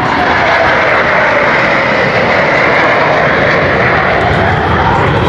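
Loud jet aircraft flying past, a steady roar with a whine that slides down in pitch over the first couple of seconds as it passes.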